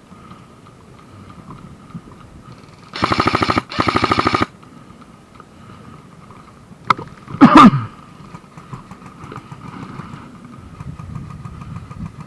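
Airsoft electric gun firing two short full-auto bursts, a rapid even rattle, about three seconds in. A few seconds later there is a single click and then a loud, sharp sound that falls in pitch.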